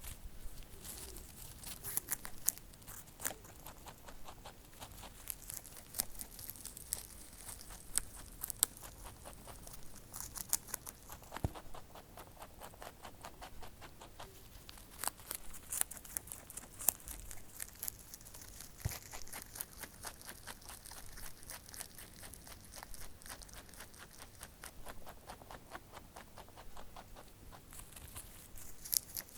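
Close-up chewing and nibbling: a dense run of small crunchy clicks and crackles, several a second, with louder snaps now and then.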